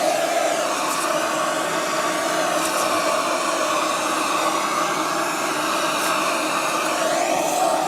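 Electric air appliance used to clear dust from under a refrigerator, running steadily with a loud rush of air; its pitch shifts a little near the end.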